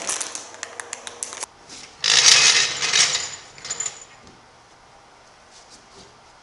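A jack and its rubber jack pad being handled: small clicks and rattles, then a louder scraping rub lasting about two seconds.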